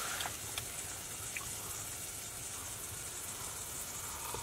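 Sliced meat sizzling quietly in a cast-iron skillet on a wood stove: a steady hiss with a few faint pops.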